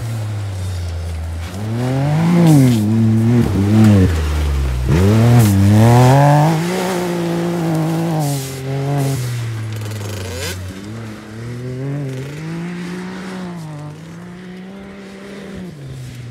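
Can-Am Maverick X3 side-by-side's turbocharged three-cylinder engine revving up and down again and again as it is driven hard on a dirt track. The pitch rises and falls several times and is loudest in the first half, then it fades as the vehicle moves away.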